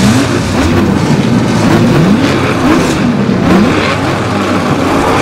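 Racing engines revving over and over, the pitch climbing and dropping back several times, over a steady low engine hum.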